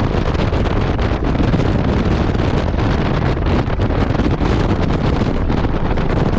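Loud, steady wind buffeting on the microphone of an Audi RS3 driven at speed on a race track, with the car's running noise underneath.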